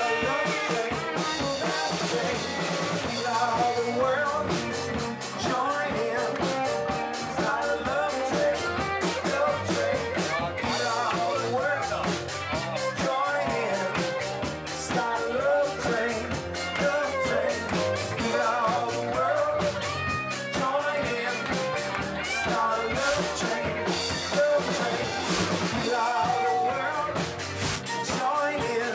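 Upbeat rock and roll music with a steady drum beat and singing.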